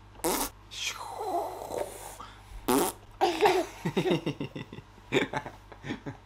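A few short breathy bursts, then laughing in quick pulses.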